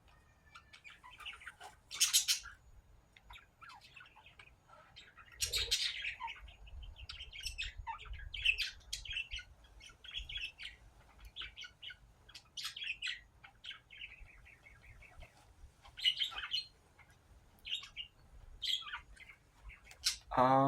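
Small birds chirping and twittering, many short high calls throughout, with a few brief louder noises in between.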